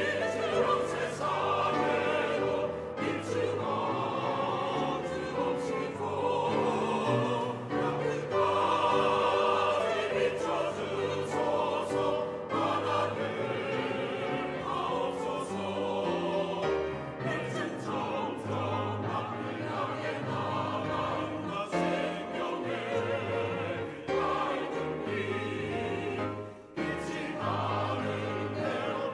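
Mixed church choir singing a Korean choral anthem in Korean, with a short break between phrases near the end.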